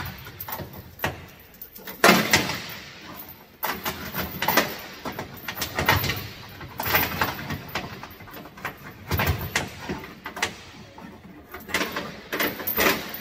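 Steel load-securement chain rattling and clinking in irregular bursts as it is folded and hung on an S-hook, the links knocking inside a metal chain box.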